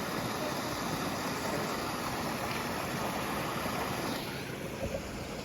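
Steady rushing of a small desert waterfall, an even wash of noise whose high end fades a little about four seconds in.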